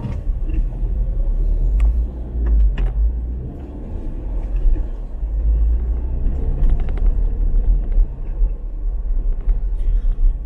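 Car driving: a steady low rumble of engine and road noise, with a few faint scattered clicks.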